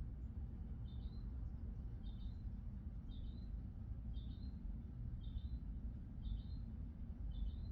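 A bird repeating a short, high chirp about once a second, very evenly, over a steady low rumble.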